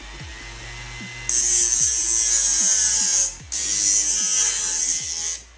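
Homemade hard-disk grinder, a sandpaper disc spun by the drive's spindle motor, grinding a screwdriver tip held against it. There are two long bursts of hissing grinding of about two seconds each, starting about a second in with a short break in the middle. Background music with a steady beat plays underneath.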